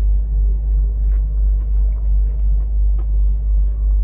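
A loud, steady, deep rumble that throbs evenly about three times a second, with faint small clicks over it.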